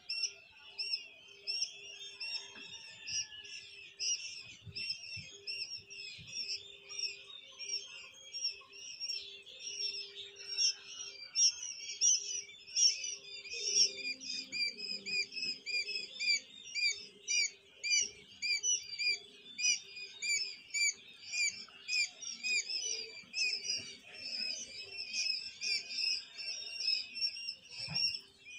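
A crowded brood of quail chicks peeping: many short, shrill chirps overlapping without a break.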